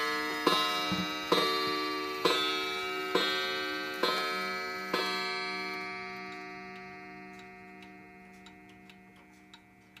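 A 31-day pendulum wall clock's hammer striking its coiled gong, about one stroke a second with each stroke ringing on, as it finishes striking the hour. The strikes stop about five seconds in; the ringing fades and the clock's steady tick, about two a second, is left.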